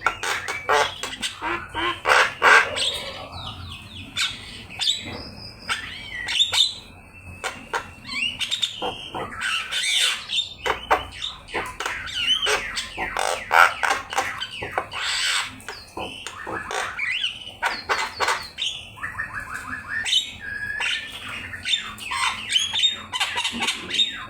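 Javan myna (jalak kebo) singing nonstop: a busy jumble of harsh squawks, whistles and fast chatter, full of mimicked calls.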